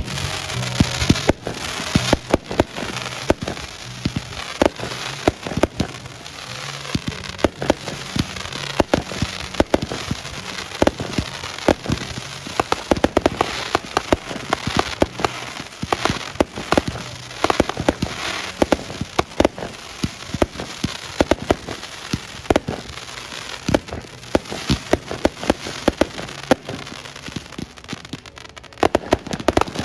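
Fireworks going off in quick succession: many sharp bangs, one on top of another, over a continuous crackle.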